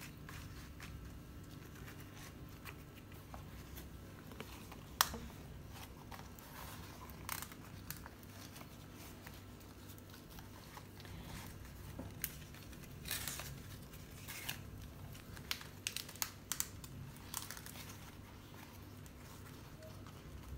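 Wilted banana leaf rustling and crinkling as hands fold it into a parcel: scattered faint crackles, busiest in the second half, over a faint steady low hum.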